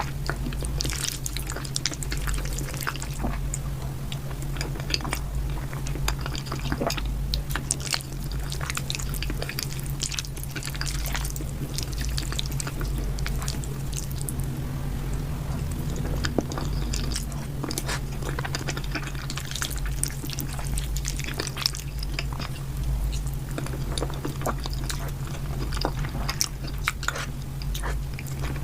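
Close-miked eating sounds: irregular wet smacks and crunchy clicks of chewing, over a steady low hum.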